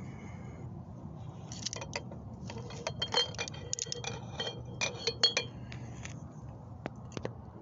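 A run of light glass clinks and taps, some ringing briefly, from glass votive candle holders knocking together. The clinks go on for about four seconds and a couple more come near the end, over a low steady hum.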